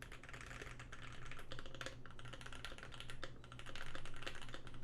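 Fast, continuous typing on a Keychron Q1 mechanical keyboard with an aluminium plate, lubed and filmed Pinoko switches and polyfill stuffed in the case: a rapid stream of key clacks, with a brief lull a little over three seconds in.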